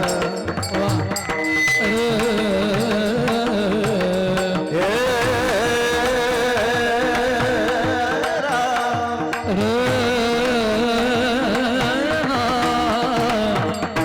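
Varkari kirtan music: a sustained, ornamented sung melody with instrumental accompaniment, the phrases breaking off briefly about four and a half and nine and a half seconds in.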